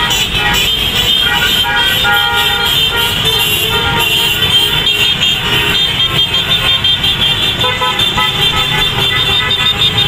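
Many motorcycle horns beeping over and over, overlapping one another, above the steady running of a long column of motorcycles and cars passing by.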